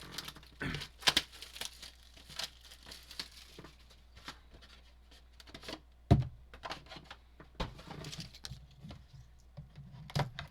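Foil trading-card pack wrappers being torn open and crinkled, with cards being handled, in a run of short, irregular rustles and clicks.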